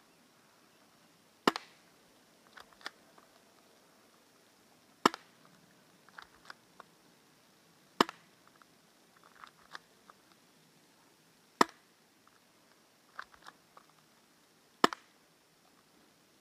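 Spring-powered airsoft Beretta pistol firing five single shots, each a sharp snap, about three to three and a half seconds apart. Between shots come quieter clicks as the pistol is cocked back by hand for the next shot.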